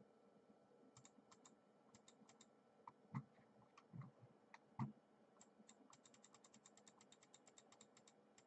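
Faint clicking of a computer keyboard and mouse being worked. Scattered single clicks come first, with a few firmer taps midway. Then there is a quick run of about eight clicks a second near the end.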